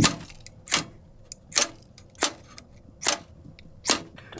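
Ferro rod scraped hard with a steel striker, about six quick rasping strikes, roughly one every 0.8 s, throwing sparks into tinder to start a wood stove fire that has not yet caught.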